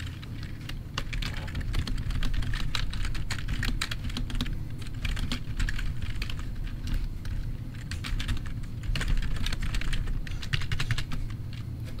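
Typing on a standard wired USB computer keyboard: quick runs of key clicks with short pauses between words and sentences.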